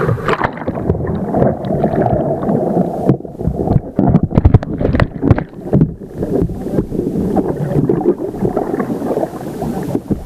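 Water rushing and bubbling around a camera in a flooded, submerged powerboat cockpit during a capsize immersion test. Many short knocks and thumps come through the water, thickest in the middle of the stretch.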